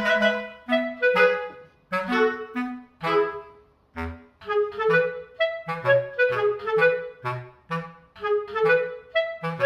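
Light instrumental background music: a bouncy melody of short, quickly fading notes over a bass line.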